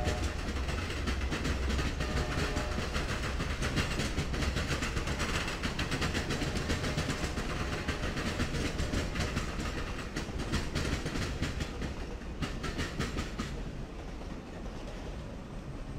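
CSX passenger cars rolling past at speed, wheels clattering rapidly over the rail joints with a steady rumble, easing off somewhat toward the end as the train goes by.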